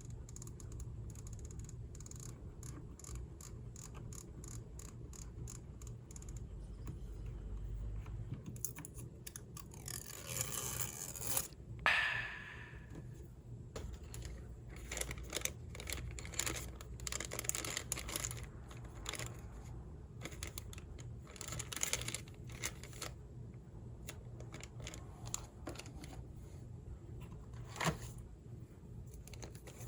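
Packaging being handled during an unboxing: rustling, scraping and tearing of cardboard and plastic, with scattered clicks. A longer tearing stretch builds to one louder rip about twelve seconds in, and more bursts of rustling follow.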